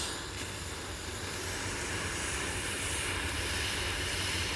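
Aerosol freeze spray can releasing one continuous jet, a steady even hiss that freezes the spot it is aimed at.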